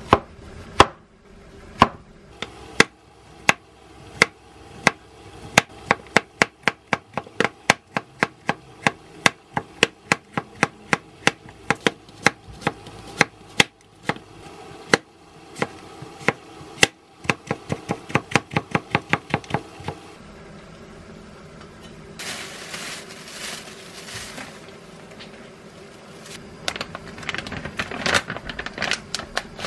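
A kitchen knife chopping cucumber and onion on a wooden cutting board, each stroke a sharp knock, about one a second at first and then quickening to two or three a second. The chopping stops about twenty seconds in, and near the end comes the rustle of plastic food packaging being handled.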